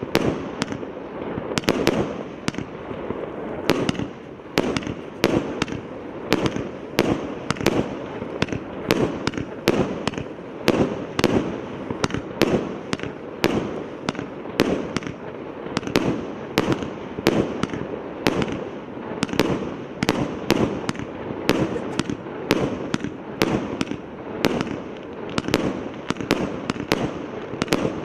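A 150-shot firework cake (PK8032) firing, sending off a rapid, even series of sharp bangs at about two a second, with a hiss between the shots.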